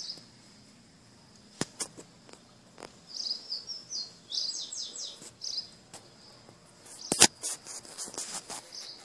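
Small birds chirping: short high chirps now and then, with a quick run of notes about three to five seconds in. Several sharp clicks cut across it, the loudest a knock about seven seconds in.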